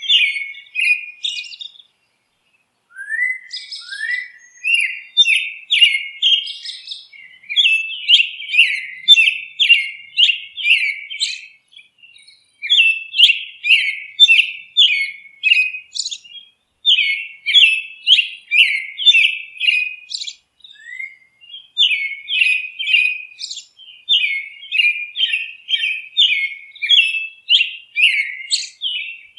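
Bird chirping: quick runs of short, high chirps, several a second, broken by a few brief pauses.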